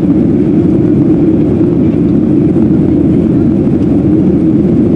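Steady low rumble of an airliner's jet engines and rushing air, heard from inside the passenger cabin in flight.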